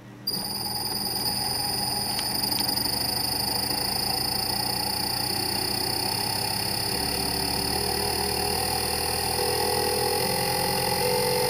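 Three-phase induction motor fed by a home-built inverter drive (IRAMS power module, STM8 controller), starting up. It gives a sudden steady high-pitched switching whine, with a lower hum that climbs gradually in pitch as the drive ramps the motor up toward 50 Hz.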